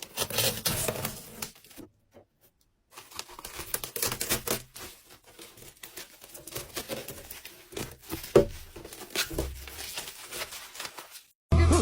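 Slime being squished and pulled by hand, giving dense crackling clicks and pops. There is a second-long gap of near silence about two seconds in.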